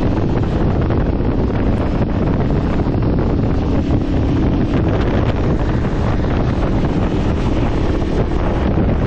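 Heavy wind buffeting the microphone of a motorcycle ridden at road speed, with the Aprilia Tuareg 660's parallel-twin engine running steadily underneath.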